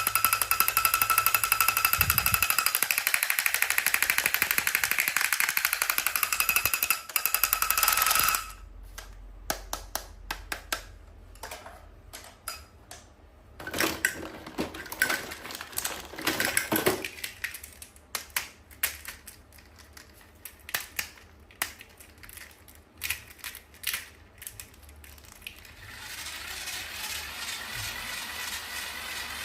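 Toy unboxing handling sounds: a loud, rapid buzzing rattle with a steady tone runs for about eight seconds and cuts off sharply. Scattered small clicks and short rustles of plastic pieces and packaging being handled follow. A steadier buzzing hum returns near the end.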